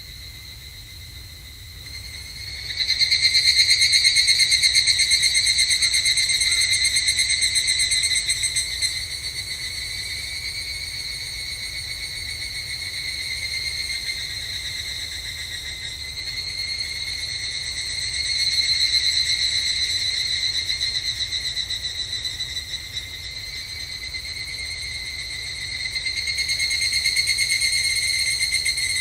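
Higurashi (evening cicadas, Tanna japonensis) calling, a high, rapidly pulsing ringing trill. It swells sharply about three seconds in, eases off, and rises again twice more.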